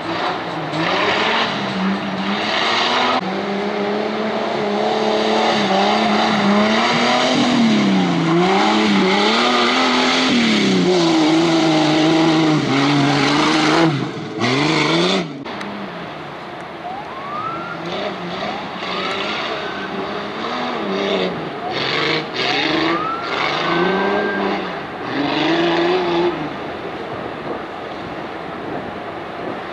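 Jeep CJ-5 off-road race car's engine revving hard, its pitch rising and falling again and again as it is driven. About halfway through it gets quieter and goes on in shorter revs, some with a rising whine over them.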